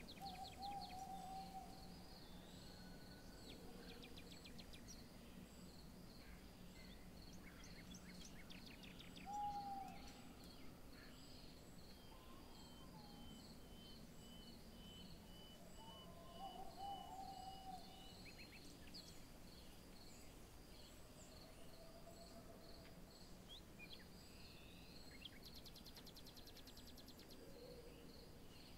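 Faint outdoor ambience of birds and insects: a high chirp repeating about twice a second, with a few short bird calls, a long thin whistle midway and a fast high trill near the end.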